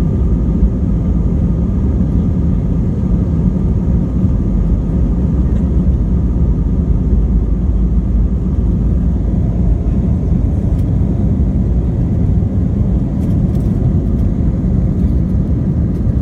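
Jet airliner cabin noise: the engines and rushing air give a steady low rumble with faint constant tones above it, unchanging throughout.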